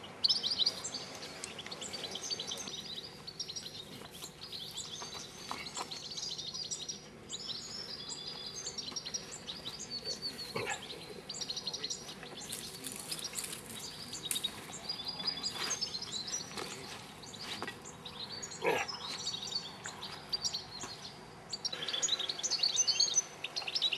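European goldfinches singing: quick, high twittering phrases that come in repeated bursts with short gaps between them.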